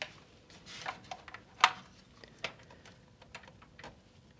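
Scattered light clicks and taps of a graphics card being handled in its PCIe slot in a PC case, checking that the slot latch has clicked shut; the sharpest click comes about a second and a half in.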